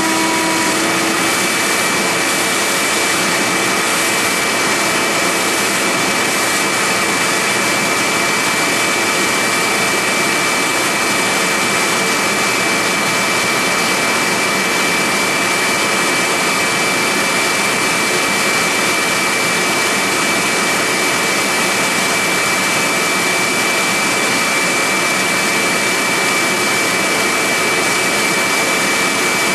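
A CNC-converted Central Machinery mill cutting a mold block at its normal cut speed: a steady loud rush from the hose aimed at the cutter, with a steady high whine throughout. A lower hum stops about a second in.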